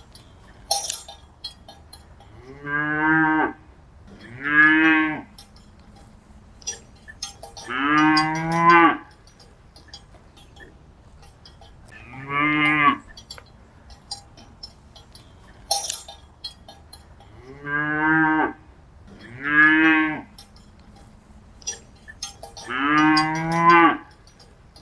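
Cattle mooing: seven calls of about a second each, some in pairs a second or two apart, over scattered short clinks.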